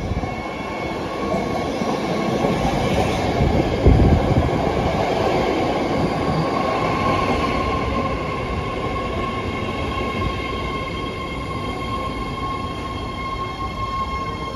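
BART Fleet of the Future subway train running in the tunnel: a steady rumble of wheels on rail with a steady high-pitched whine, and one loud thump about four seconds in.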